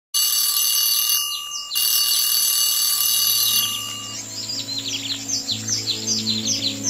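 Alarm clock ringing with steady high tones for about three and a half seconds, with a short break about a second in. It gives way to birds chirping over soft, sustained music chords.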